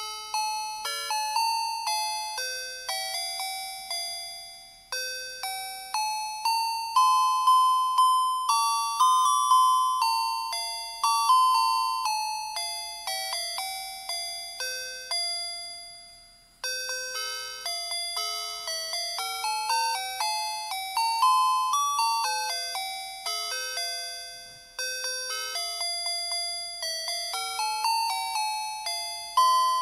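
Electronic melody chip of Christmas string lights playing a carol tune, one tinny beeping note at a time, each note fading quickly. The tune breaks off briefly between phrases three times.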